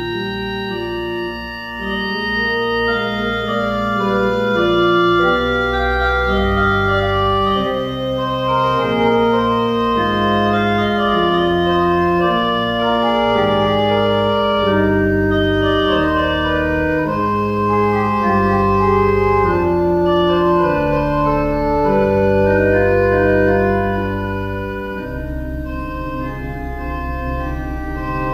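Organ playing a slow piece of music in sustained chords, each held steady and changing every second or two.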